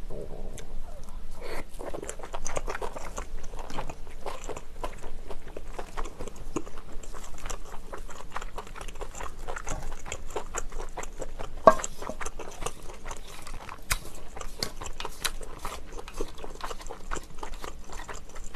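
Close-miked chewing and biting of cheese-baked pen shell clam meat: wet mouth sounds and many small clicks, with one sharp louder click near the middle.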